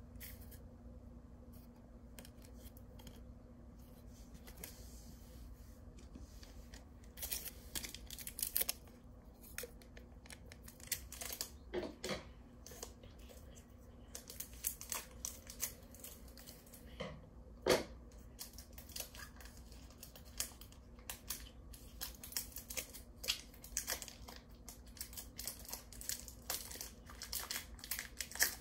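Foil trading-card booster-pack wrappers and cards being handled: quiet for the first several seconds, then irregular crinkling and sharp clicks, with one louder snap a little past the middle.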